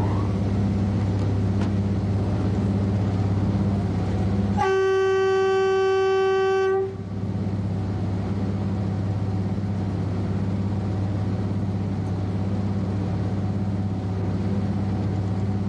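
Steady low hum of a locomotive running, heard from its driver's cab. About four and a half seconds in, the horn sounds one loud, single-pitched blast held for about two seconds.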